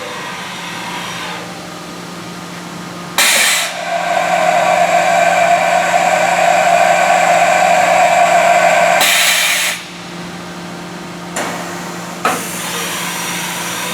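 Haas EC-1600 horizontal machining center running under power, with a steady hum throughout. A much louder machine sound starts suddenly about three seconds in and holds for roughly six seconds before dropping away.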